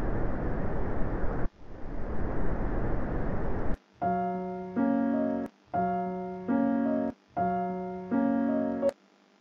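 Wind sound effect: a steady rushing noise that breaks off for an instant about a second and a half in and stops just before four seconds. Then a short musical jingle of held chords, a two-chord figure played three times, ending just before the last second.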